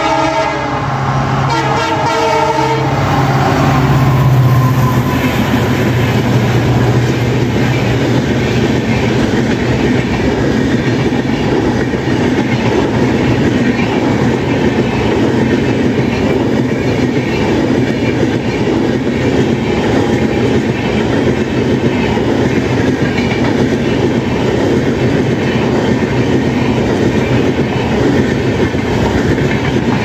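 Indian Railways WDG-4 (EMD GT46MAC) diesel locomotive passing at speed: its air horn sounds a chord that ends about two seconds in, then the heavy low hum of its EMD two-stroke engine swells as it goes by, about four seconds in. After it, a long rake of LHB passenger coaches rushes past with a steady rumble and a rhythmic clickety-clack of wheels over the rail joints.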